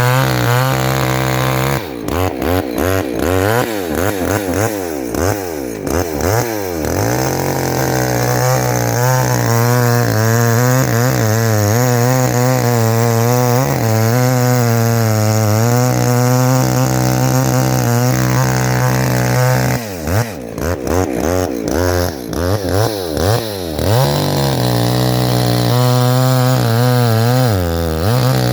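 Two-stroke chainsaw running at high revs, as in a felling cut. Its pitch dips and rises repeatedly a couple of seconds in and again past the middle, and holds steady in between.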